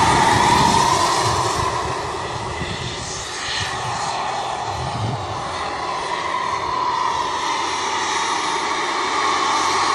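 Large radio-controlled scale model helicopter in flight, its engine and rotor making a steady whine. The sound fades about three seconds in as it moves away, then grows louder again toward the end.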